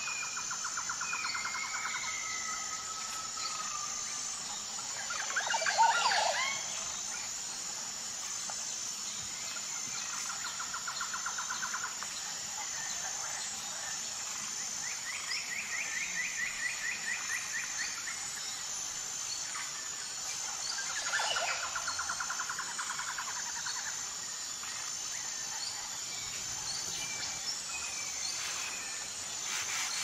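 Wild birds calling: repeated rapid trills and thin whistled notes, with one loud downward-sweeping call about six seconds in, over a steady high-pitched chirping of crickets.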